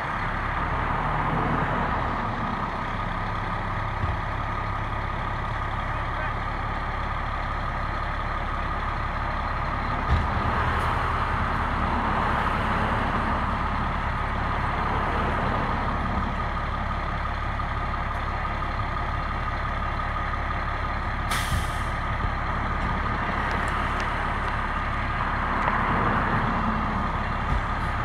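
Fire truck running with a steady low engine rumble and a mid-pitched whine that swells and fades over several seconds, with a short air-brake hiss about three-quarters of the way through.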